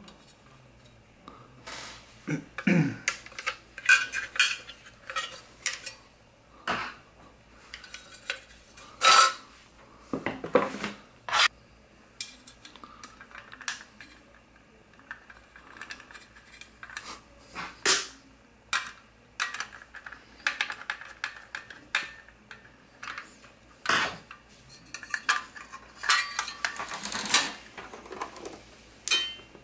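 A sheet-metal hard-drive cage being unscrewed and handled: irregular metal clicks, clinks and rattles from the screwdriver, screws and steel bracket.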